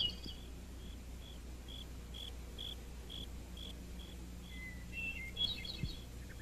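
Cricket chirping steadily, about two short high chirps a second, with a brief run of bird chirps about five seconds in, over a low steady hum.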